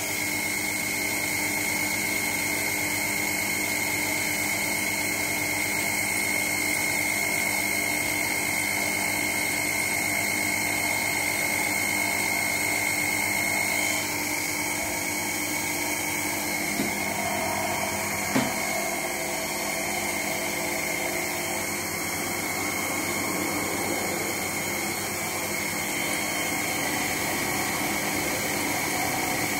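Windshield wiper motor driving a Sherline lathe, running steadily with a whine while the lathe turns a copper rod. About halfway through, the tone shifts. Two short sharp clicks follow a few seconds later.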